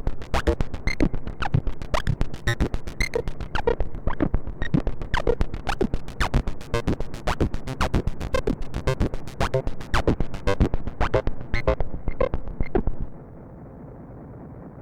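Moog Matriarch analog synthesizer playing a fast run of short, clicky, percussive notes, about five a second. About thirteen seconds in the run stops suddenly, leaving a quieter, muffled sustained tone.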